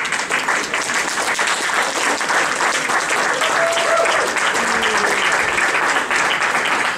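Audience applauding steadily, dense clapping from many hands.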